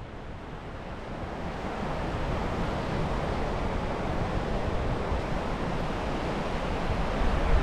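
Surf washing onto a sandy beach, a steady rushing hiss with some wind on the microphone, fading in over the first two seconds.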